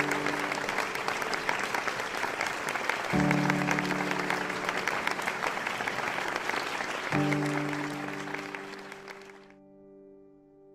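A crowd applauding over background music of slow, sustained piano chords, a new chord about every four seconds. The applause stops about nine and a half seconds in, leaving the last chord fading.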